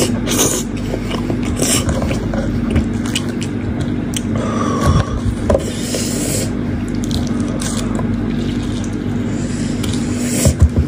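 Wet tearing, squelching and crackling as meat is pulled by hand from a cooked sheep's head in chilli sauce, with chewing early on, over a steady low hum. A few heavy thumps come near the end as the head is pulled apart.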